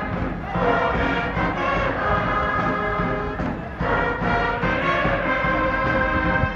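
Music with sustained, held notes in phrases, breaking off briefly about half a second in and again near four seconds in.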